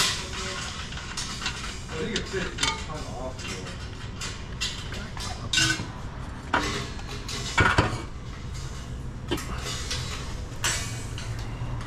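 A section of a car's steel exhaust pipe being worked loose from its hangers, clanking and clinking against the underbody, with a few louder metal knocks in the middle.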